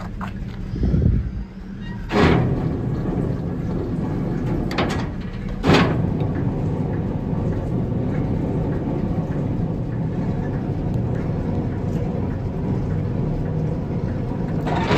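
1957 Chevrolet Task Force 3800 tow truck's engine running as the truck is driven, a steady low hum with two sudden louder surges, about two seconds in and near six seconds in.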